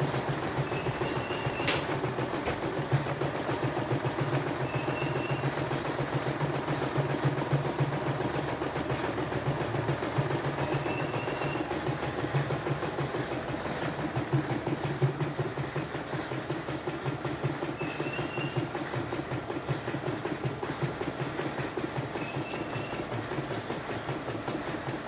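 CNY E960 portable embroidery machine stitching out a design: a fast, steady clatter of needle strokes as the hoop carriage steps the fabric along.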